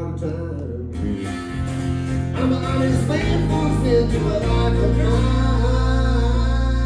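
Live Americana band: a male lead singer over two strummed acoustic guitars and an electric bass. From about halfway the band settles onto a steady held chord.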